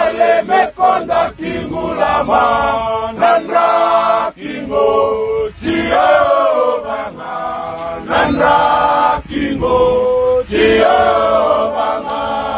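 A group of men singing a hymn together in harmony, in phrases of a second or two with short breaks.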